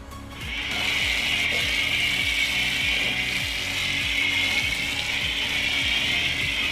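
Worx Hydroshot battery-powered pressure washer running and spraying soap through a foam-cannon attachment: a steady hiss of spray over the pump motor that starts just after the trigger is pulled.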